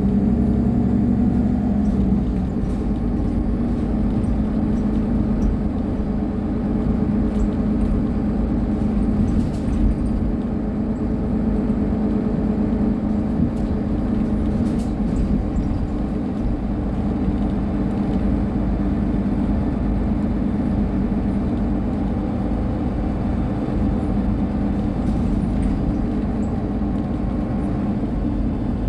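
Solaris Urbino 18 III articulated city bus standing with its diesel engine idling: a steady low hum. The low tones shift slightly about two seconds in, then hold even.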